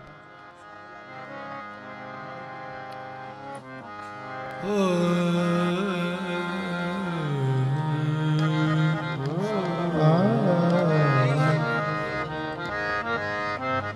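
Harmoniums play a sustained drone and melody while a male voice sings a wordless, gliding alaap over them. The music gets markedly louder about five seconds in and moves into quicker stepped harmonium phrases near the end.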